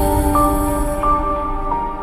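Background music: soft sustained synthesizer-like notes over a deep low bass.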